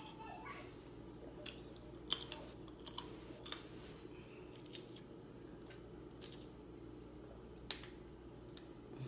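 Crab leg shells being cracked and picked apart by hand: scattered sharp cracks and clicks, about eight in all, over a faint steady hum.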